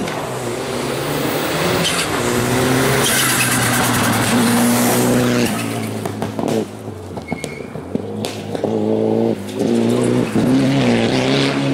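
Rally cars driven flat out on a gravel special stage. Each engine revs hard and climbs through quick gear changes as the car passes, with tyres on loose gravel.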